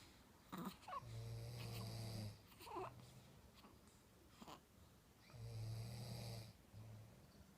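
Snoring: two long, buzzing snores about four seconds apart, each followed by a shorter, softer one, with brief breathy sounds between them.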